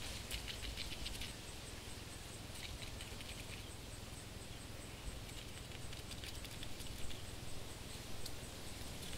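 Faint scratchy patter of a small creature scuttling, heard as several short runs of quick, light ticks over a soft steady hiss.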